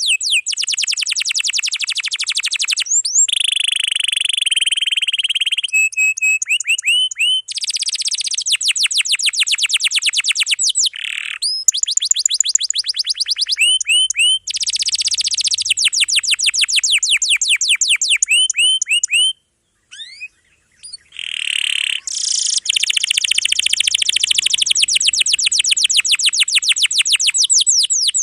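Domestic canary singing a dense, high-pitched song of fast rolling trills and quickly repeated chirping phrases, with a short pause about two-thirds of the way through.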